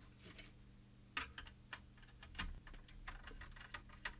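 Light, sharp clicks and taps of the plastic case of a tumble dryer's electronic controller being handled and worked on by hand. A few separate clicks come about a second in, and a quicker run of clicks follows in the second half.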